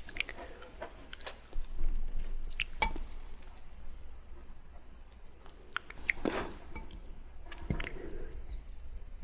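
A person eating close to the microphone: chewing mouth sounds with scattered sharp clicks, and two longer wet sounds about six and eight seconds in.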